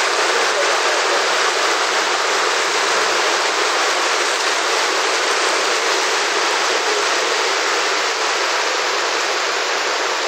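Steady rush of water from a tropical-storm downpour and floodwater running through a street.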